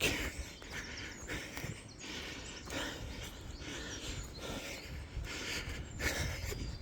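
Footsteps along a muddy path with the walker's breathing, soft noisy swells about once a second over a low rumble of wind on the microphone.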